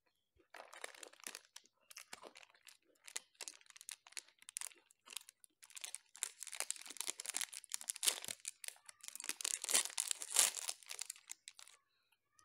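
Plastic wrapper of a Chocobar ice-cream stick crinkling and being torn open by hand. It starts about half a second in and gets busier and louder toward the end.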